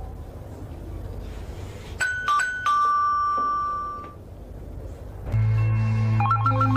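Two-tone doorbell chime about two seconds in, each note ringing out. About five seconds in, a low steady musical drone begins, and near the end an electronic telephone starts its fast two-note trill.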